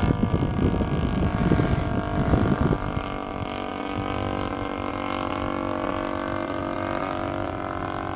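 DLE-20 single-cylinder two-stroke gasoline engine of an RC P-51 Mustang model running in flight on a 16x8 propeller, a steady drone whose pitch shifts a little as the plane moves across the sky. Wind buffets the microphone for the first three seconds or so.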